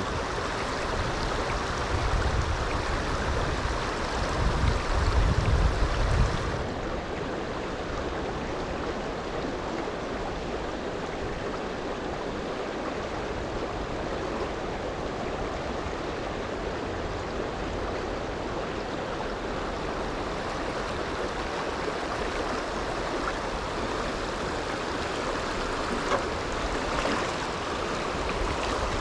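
River water rushing steadily over a shallow riffle, with a heavier low rumble through the first six seconds or so.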